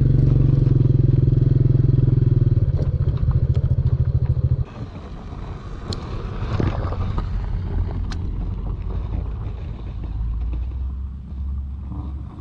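Small underbone motorcycle engine running steadily while riding, cutting off abruptly about four and a half seconds in. After that, quieter rustling with two sharp clicks.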